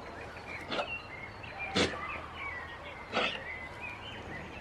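Birds chirping faintly. Three short, sharp noises come about a second apart; the middle one is the loudest.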